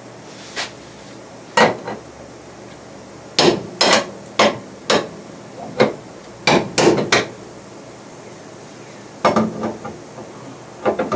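Hammer blows on metal: about a dozen sharp strikes in uneven groups, with a pause in the middle, on a stuck crossmember bolt rusted to its sleeve.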